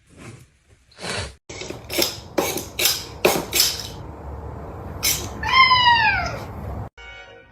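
A series of sharp knocks or thumps, then a cat gives one drawn-out meow whose pitch falls, lasting about a second.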